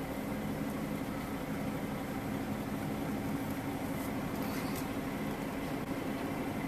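Diesel semi truck engine idling steadily, a constant low hum.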